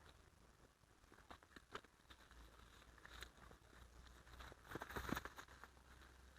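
Near silence with a faint low hum, a few scattered faint clicks, and a brief rustling cluster of clicks about five seconds in.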